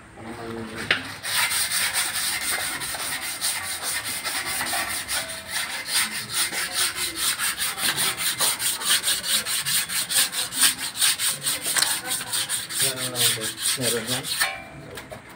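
Abrasive paper scrubbed by hand against the front brake rotor and hub of a Toyota Hilux, cleaning the metal. It is a fast run of rasping back-and-forth strokes, several a second, that starts about a second in and stops near the end.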